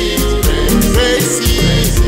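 Christian pop song playing: a steady drum beat over a strong bass line, without lead vocals.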